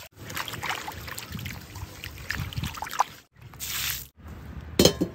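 Water poured into a cast iron kazan, splashing and sloshing inside the pot, then tipped out and splattering onto gravel. A single sharp knock near the end is the loudest sound.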